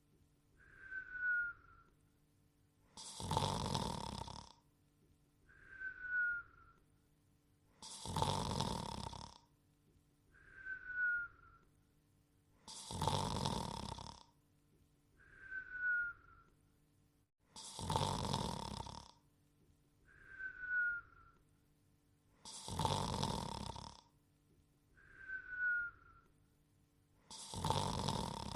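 Cartoon snoring: a long rasping snore alternating with a short falling whistle, repeating steadily about every five seconds, six snores and six whistles in all.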